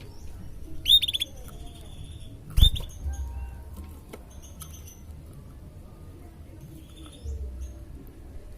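Black-red canary giving short, high chirps: a quick run of notes about a second in, another chirp with a sharp knock at about two and a half seconds, then a few fainter chirps, over a low rumble.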